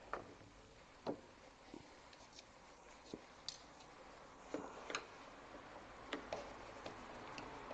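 Light clicks and taps of a car door lock mechanism and small tools being handled, about a dozen, irregularly spaced, over a low steady hiss.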